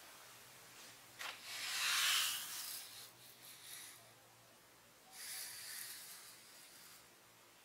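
Dry rubbing or sliding across a surface, twice: a louder stretch starting sharply about a second in and fading by about four seconds, then a weaker one around five to seven seconds in.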